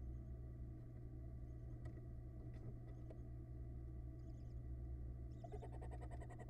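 Steady low hum from the nest-box camera's microphone with a few faint ticks. Near the end a barn owl starts a rapid chittering call, a fast run of short notes.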